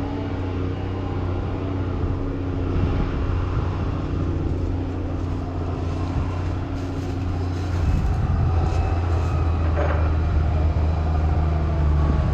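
Log skidder's diesel engine running as the machine drives up, its low drone getting louder and heavier about eight seconds in.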